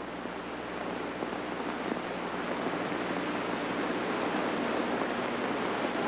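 Steady hiss of worn old television soundtrack audio, slowly growing a little louder, with no clear sound events in it.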